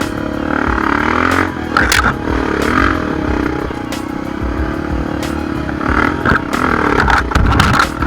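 Dirt bike engine running and revving up and down under load, with clattering knocks, over background music.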